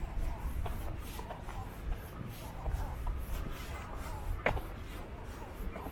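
Footsteps at a steady walking pace, about two a second, over a low rumble, with one sharper click about four and a half seconds in.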